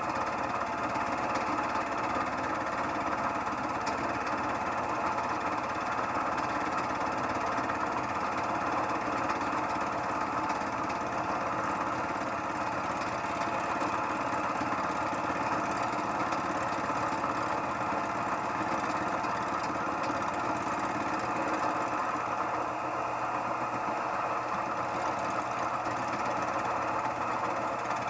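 Harbor Freight mill-drill-lathe combination machine running steadily as its fly cutter takes a surfacing pass across a workpiece clamped in the vise.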